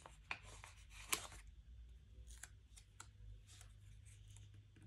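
Faint handling of a paper sticker sheet: scattered short crackles and ticks as small stickers are peeled off their backing and pressed onto a planner page, the sharpest about a second in.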